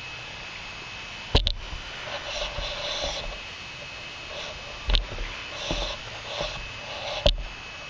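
Handling noise: three sharp knocks a few seconds apart, with bouts of rustling in between.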